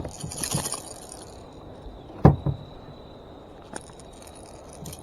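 Handling noises: a brief rustle at the start, then a sharp knock a little past two seconds in and a fainter click near four seconds, over a low steady outdoor background.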